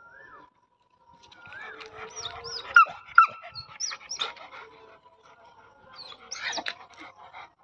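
A dog and a monkey play-fighting, with a string of short, sharp, high squeals and yelps. They bunch together from about a second and a half in, peak around three seconds, and come once more near the end.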